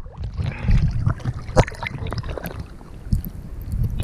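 Sea water lapping and splashing at the surface right against the microphone, over a steady low wind rumble on the microphone, with a few short, sharp splashes.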